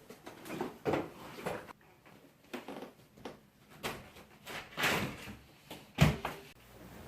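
Irregular knocks and bumps, about half a dozen, with the loudest one about six seconds in.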